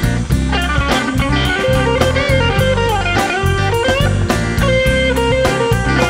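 Electric blues band playing an instrumental passage: a lead electric guitar with bent notes over a drum kit and bass.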